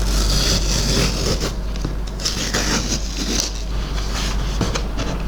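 A shipping package being opened by hand: continuous scraping and rustling with scattered clicks and knocks, over a steady low rumble.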